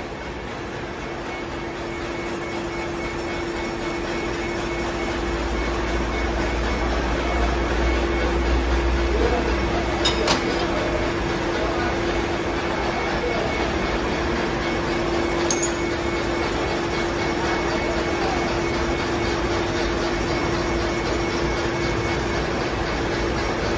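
Mori Seiki CNC vertical milling machine running with a steady mechanical hum, growing louder over the first few seconds, with two sharp metallic clicks about ten and fifteen seconds in.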